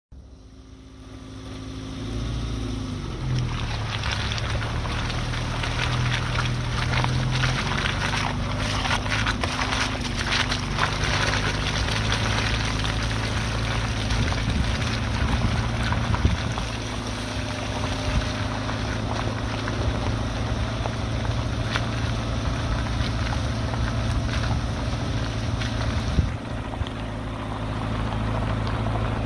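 1991 Suzuki Sidekick driving slowly over a rough gravel and dirt track. Its engine hums steadily under the crunch and crackle of tyres rolling over stones and gravel.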